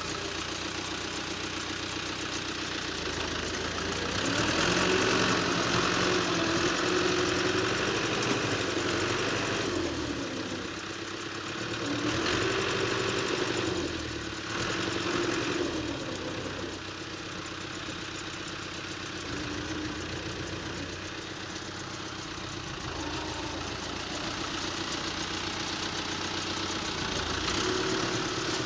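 Diesel tractor engine working under load in deep mud, its pitch rising and falling as it revs. It surges louder several seconds in and again around the middle, then settles to a steadier run.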